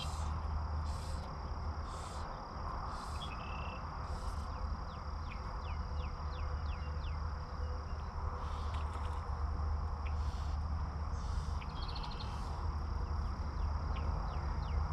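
Outdoor lakeside ambience: insects keep up a steady high-pitched drone, and a bird gives short falling chirps in quick runs, over a constant low rumble.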